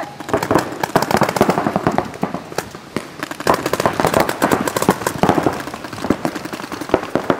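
Paintball markers firing in rapid, overlapping strings of sharp pops, several guns at once, with the shooting thinning a little a couple of seconds in before picking up again.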